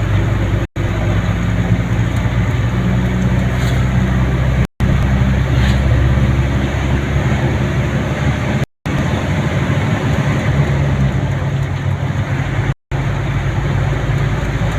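Vehicle engine hum and road noise heard while travelling along a road, steady and loud. The sound drops out completely for a split second four times, about every four seconds.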